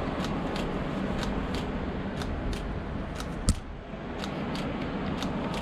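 Steady rumble and hiss of the kind heard inside a running vehicle, with a light, regular ticking about three times a second. One sharper click comes about three and a half seconds in, after which the rumble briefly drops.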